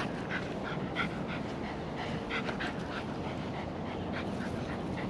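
Dogs panting in short, quick breaths as they play-wrestle.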